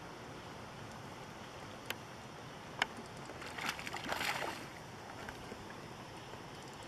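A hooked fish thrashes and splashes at the water's surface for about a second, a little past the middle, while it is reeled in. Before it come two sharp clicks.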